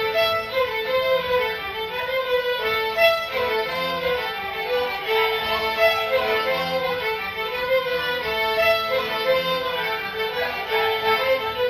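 Breton traditional dance music played by the stage band: a continuous melody line over drums and guitar.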